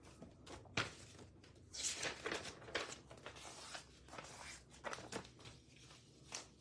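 Rustling and crinkling of wrapping being handled, in short scrapes, with a sharp click just under a second in and a denser run of crinkles about two seconds in.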